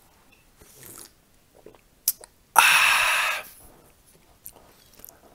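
A few faint sips from a mug, then a sharp knock about two seconds in as the mug is set down. Right after comes a loud breathy exhale lasting about a second, followed by small mouth and cutlery clicks of eating.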